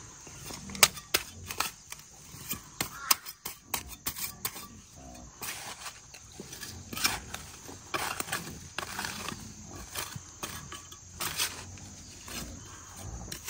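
Hands scraping, pressing and crumbling clumps of damp soil in around a planted shrub's root ball. Several sharp knocks in the first few seconds, then longer rustling scrapes through the middle.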